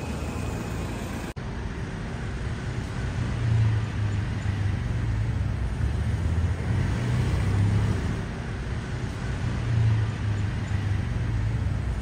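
Street traffic noise: a steady low rumble of road vehicles that swells and eases, broken by a brief drop-out about a second in.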